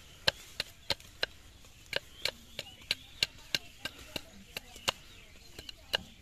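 Machete blade chopping and shaving a thin bamboo stick: sharp, quick taps, about three a second, with a brief pause about a second and a half in.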